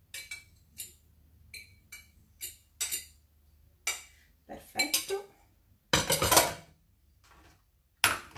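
Utensil clinking and scraping against bowls as beaten eggs are emptied out of a white bowl into a steel mixing bowl. Short, irregular clinks, some ringing briefly, with a louder clatter about six seconds in and a sharp knock near the end.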